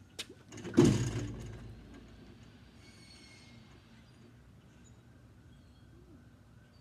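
A basketball strikes a portable hoop's backboard and rim about a second in, a loud bang that rattles and rings out over about a second, just after a light knock.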